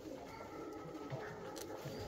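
Several Alföldi-Körösi tumbler pigeons cooing, their calls overlapping at different pitches.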